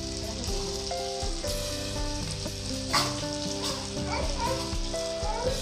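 Marinated meat sizzling on the hot grill ring of an electric steamboat pan while it is turned with tongs, with a sharp clack of the tongs about three seconds in.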